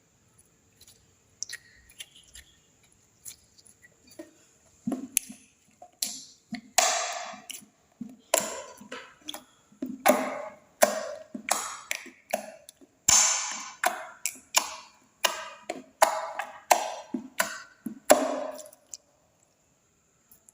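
Clear slime with glitter being mixed: faint sticky clicks at first, then a run of sharp wet pops and squelches, roughly one every three-quarters of a second, stopping about a second before the end.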